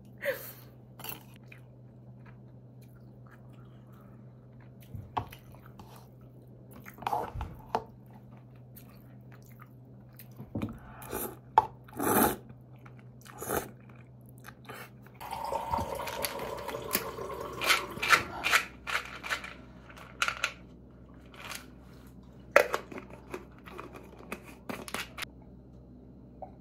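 A person eating cup noodles, with short, irregular chewing and eating noises close to the microphone and a busier run of them about two-thirds of the way through.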